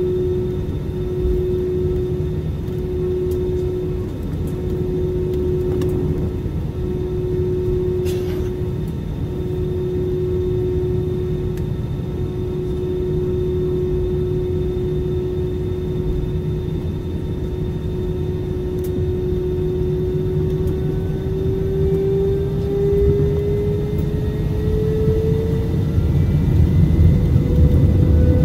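An airliner's jet engines heard from inside the cabin: a steady hum over a low rumble that pulses about once a second at first. From about two-thirds of the way through, the hum rises in pitch and grows louder as the engines spool up, typical of thrust being added for the takeoff roll.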